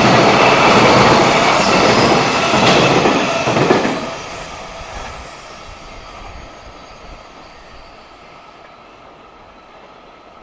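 A freight train passing close at speed: steel wheels running on the rails with a steady whine from the wheels. The noise drops sharply about four seconds in as the end of the train goes by, then fades away.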